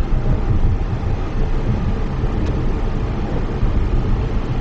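Steady road and tyre noise inside the cabin of a Tesla electric car cruising at about 44 mph.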